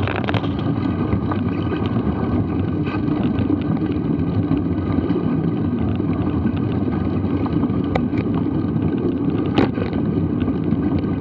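Mountain bike rolling along a dirt forest singletrack, with steady wind and tyre rumble on a bike-mounted action camera's microphone. A few sharp knocks and rattles come from bumps, the loudest about two seconds before the end.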